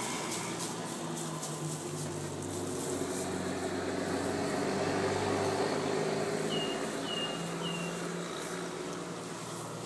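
Steady low motor hum that swells in the middle and fades toward the end, with three quick high bird chirps about seven seconds in.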